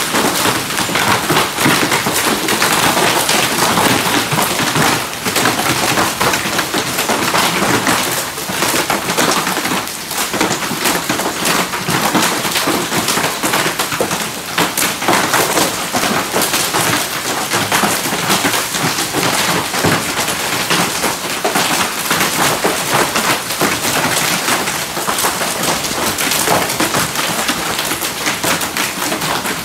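Heavy rain mixed with small hailstones falling on stone paving tiles: a steady dense hiss with many sharp ticks of individual hits.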